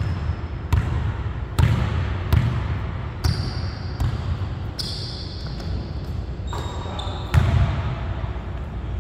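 Basketball dribbled on a hardwood gym floor, bouncing roughly once a second, with a few short high squeaks.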